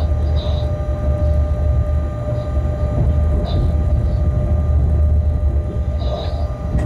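Shunting locomotive running slowly along the track, heard from its cab: a steady low rumble with a constant whine, and brief higher hissing or squealing sounds a few times.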